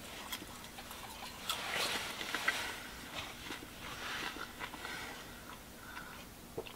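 A person eating popcorn: soft chewing and small crunches, with a few light clicks and rustles as a plastic cup is picked up and drunk from.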